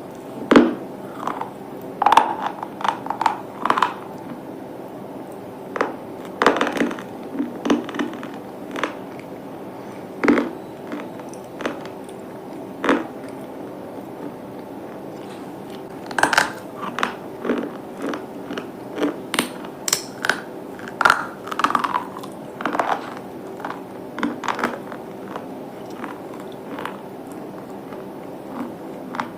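Hard, brittle pieces being bitten and crunched close to the microphone, in irregular clusters of sharp cracks and crackles with short pauses between bites.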